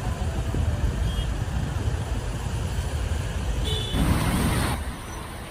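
Steady rumble of fast-flowing floodwater, with cars wading through it. About four seconds in a louder rushing hiss lasts under a second, then the sound drops quieter.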